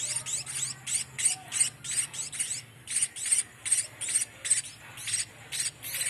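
Munia fledglings giving rapid, high-pitched begging calls, several a second, while being hand-fed.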